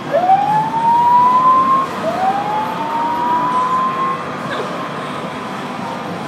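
A whooping siren sounds twice, each tone climbing in pitch for about two seconds, over the steady rush of the hurricane simulator's blown wind. The siren stops about four seconds in, and the wind goes on alone.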